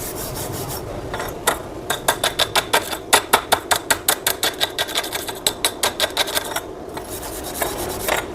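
Wire brush scrubbed back and forth over a fresh gasless MIG weld bead on steel, about four quick scraping strokes a second, cleaning the flux slag off the weld. The strokes stop about two-thirds of the way through, with a brief scrape again near the end.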